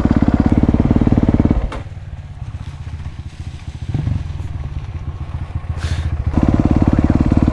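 A 2023 Honda CRF250RX's single-cylinder four-stroke engine running with a rapid, even firing beat. It is louder for the first second and a half, drops back for about five seconds, then picks up loud again near the end.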